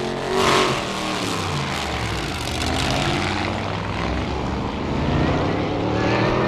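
Recorded hot-rod engines running and revving as a drag-race sound effect, with a louder noisy flare about half a second in and the engine pitch climbing near the end.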